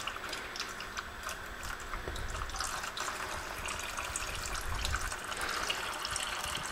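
Green engine coolant draining from a motorcycle's engine-block drain bolt hole in thin streams, trickling and splashing into a drain pan already partly filled with coolant, with many small drip ticks.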